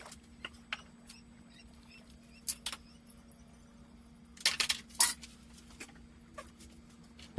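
Scattered light clicks and clinks, with a denser, louder cluster about four and a half to five seconds in, over a faint steady hum.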